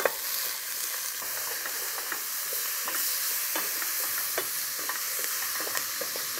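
Diced apple, carrots and onions sizzling in goose fat in a stainless-steel pot while being browned, stirred with a wooden spatula that knocks and scrapes against the pot in frequent light, irregular strokes over a steady hiss.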